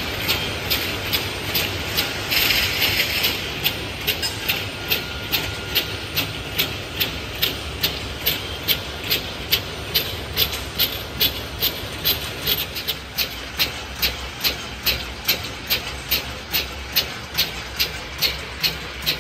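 Automatic glass-bottle bottling line running: a steady machine hum with a sharp, regular click about twice a second, the working rhythm of the machine. A short hiss sounds about two seconds in.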